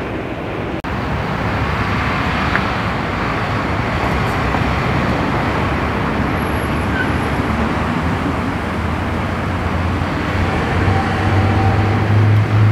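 Car driving through a parking lot amid steady road traffic noise, with a low engine hum that grows louder about ten seconds in.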